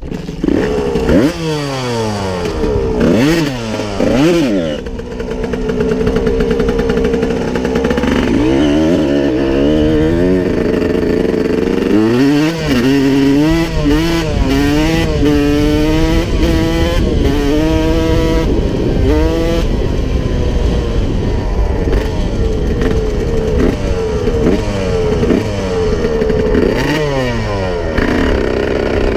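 1992 Honda CR125's single-cylinder two-stroke engine revving while the dirt bike is ridden: several quick rises and falls in pitch in the first few seconds, more swells of revs around the middle, then steadier running near the end.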